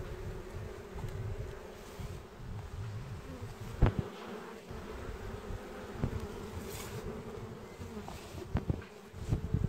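Honeybees humming steadily at the entrance of their hive, with low rumbling noise on the microphone. A sharp knock about four seconds in is the loudest sound, and a few smaller bumps come near the end.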